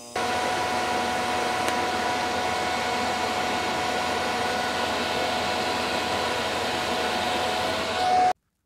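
TIG welder running an arc on a stainless steel V-band exhaust flange: a steady hiss with a steady hum-like tone that starts suddenly as the arc strikes and cuts off suddenly near the end.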